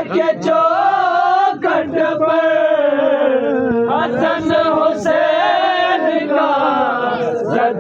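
A man singing an Urdu devotional song in praise of Ali, drawing out long held notes that glide slowly up and down without clear words, with short breaths between phrases.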